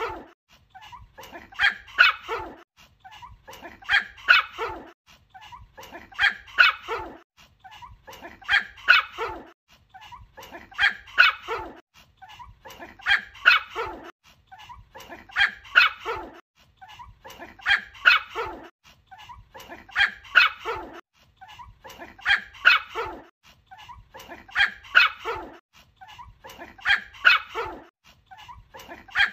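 Small dog, a white Pomeranian, yapping in bursts of three or four quick barks, the bursts repeating evenly about every two seconds.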